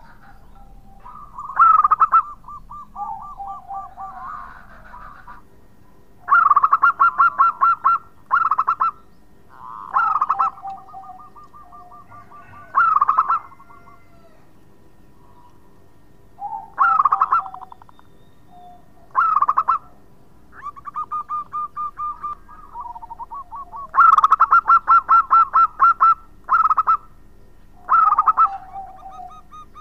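Zebra dove (perkutut) cooing: about ten short, loud phrases of rapid repeated coo notes spaced a few seconds apart, with softer rolling trills between them.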